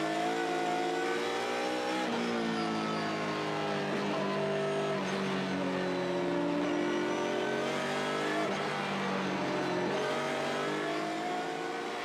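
BMW GT race car's engine heard from its own onboard camera at racing speed, the pitch climbing and dropping as it runs through the gears, with sharp shifts at about two, five and eight and a half seconds in.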